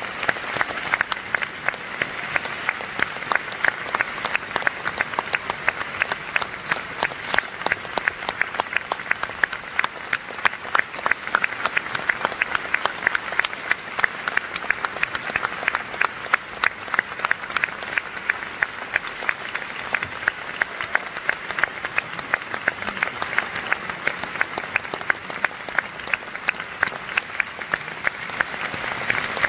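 Audience applauding steadily in a concert hall: dense clapping, with single louder claps standing out above it.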